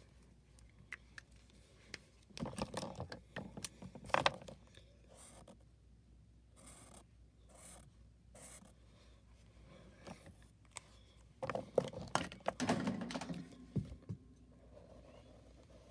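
Felt-tip Sharpie markers scratching over paper as lines are drawn. Two louder spells of handling noise with sharp clicks, a couple of seconds in and again about twelve seconds in, come as the markers are swapped.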